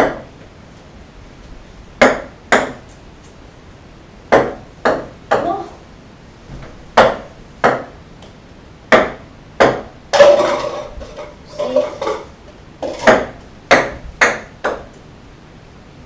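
Ping pong balls bouncing on a wooden tabletop: sharp clicks, mostly in pairs about half a second apart as each thrown ball lands and bounces again. About ten seconds in comes a longer, louder clatter.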